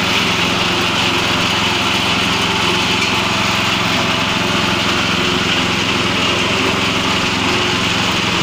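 GX200 single-cylinder four-stroke petrol engine running steadily at constant speed, driving a wet coffee bean pulping machine on test.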